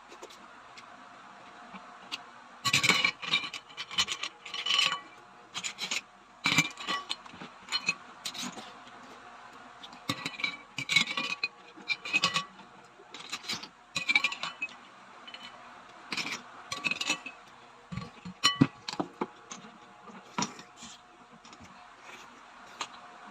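Eating utensils and clam shells scraping and clinking against dishes in irregular bursts, some clinks ringing briefly.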